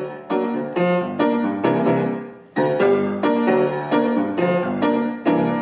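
Piano playing an instrumental introduction, chords struck in a steady rhythm with a brief break about two and a half seconds in.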